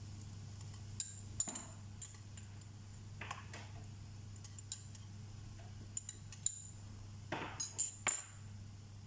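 A spoon or utensil clinks and taps against a small glass bowl held over a stainless steel pan, a dozen or so light clinks spread out, with a quick cluster near the end. A steady low hum runs underneath.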